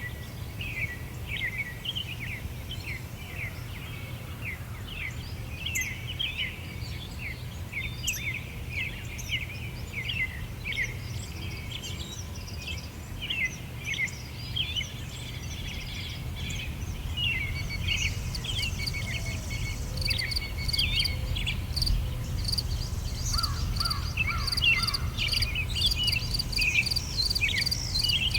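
Small songbirds chirping and twittering continuously, with a fast, even insect chirr starting about two-thirds of the way in, over a low steady outdoor rumble.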